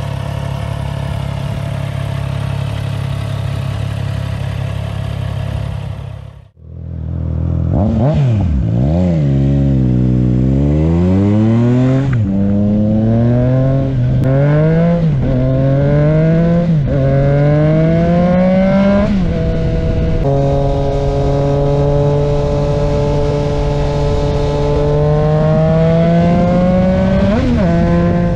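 Triumph Trident 660's inline three-cylinder engine idling steadily. Then, heard from the rider's seat, it accelerates up through the gears: the pitch climbs and drops briefly at each upshift, settles into steady cruising, and is blipped once near the end.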